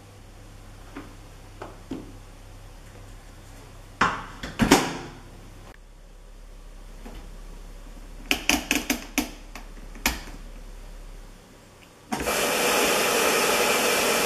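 Philips SlimStar HN3156 washing machine being set going: two thumps about four seconds in, then a quick run of clicks as the programme dial is turned. About twelve seconds in, a loud steady hiss starts as water rushes in through the inlet to fill the drum.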